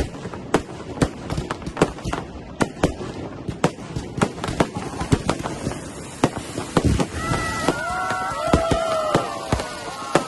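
Fireworks going off: many sharp bangs and crackles at irregular intervals, some in quick succession. From about seven seconds in, a few long whistling tones overlap them, each falling slightly in pitch.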